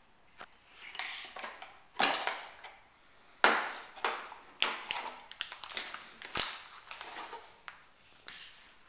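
Plastic kit parts being unpacked from a cardboard box and set down on a table: irregular rustling and crinkling of packaging with a few sharp plastic clacks, the loudest about two and three and a half seconds in.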